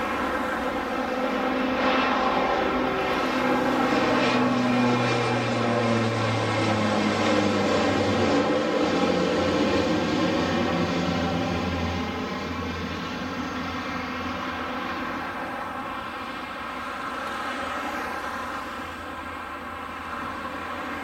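Bombardier Dash 8 Q400 turboprop climbing out after takeoff and passing overhead: a propeller drone made of many even tones. It is loudest in the first half, its low tones drop in pitch as it passes, and it fades as the plane flies away.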